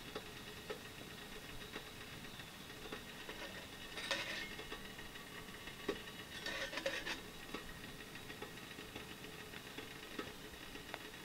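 Faint, irregular crackling and ticking of a small wood-burning tent stove's fire, over a steady background hiss. Two short bursts of rustling and handling about four seconds in and again around six and a half seconds in.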